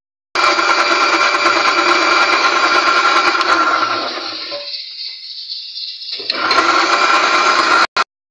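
Electric blender running at speed, beating eggs and sugar for cake batter. It starts abruptly, drops away for a moment past the middle, comes back and cuts off sharply near the end.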